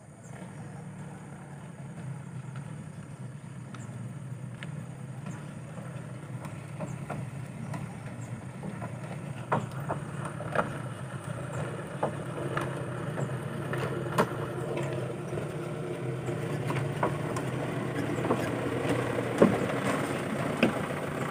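Diesel engine of a Mitsubishi 'umplung' PS100 dump truck running as the truck reverses closer, growing steadily louder, with a few sharp knocks along the way.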